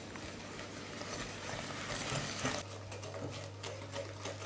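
Wire whisk stirring egg yolks with sugar, starch and cocoa in a glass bowl: soft scraping, with light taps of the wires against the glass, about three a second in the second half. A faint low hum runs underneath.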